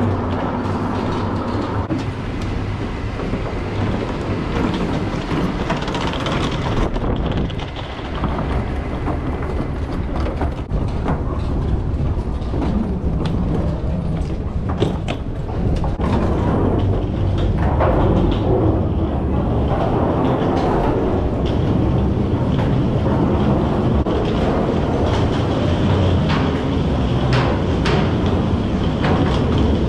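Wheeled suitcases rolling over wooden decking and a boarding gangway: a steady rumbling clatter with scattered clicks, growing louder about halfway through.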